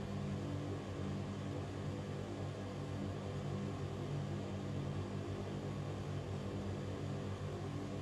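Ventilation fan running steadily: an even rush of moving air over a low hum with a few held tones.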